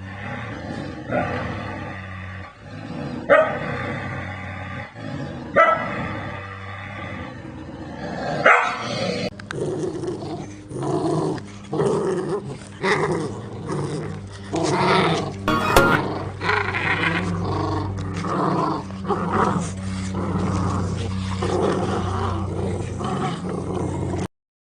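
Large dogs growling and barking. At first there is a bark about every two seconds over a low growl. From about nine seconds in, a different, denser run of growls and barks follows, and it cuts off suddenly near the end.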